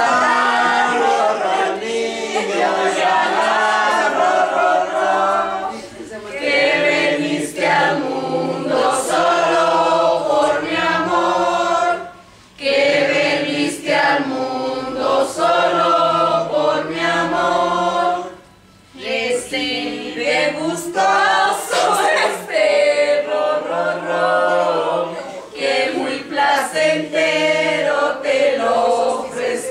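A group of people singing together without accompaniment, in sung phrases with two short breaks, about twelve and eighteen seconds in.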